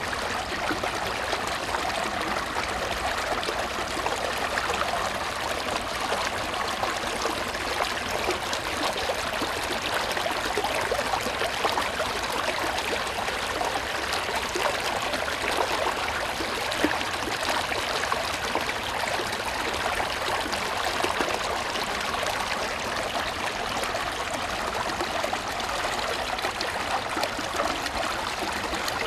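Small woodland brook running steadily over stones and shallow riffles, an even splashing trickle with no breaks.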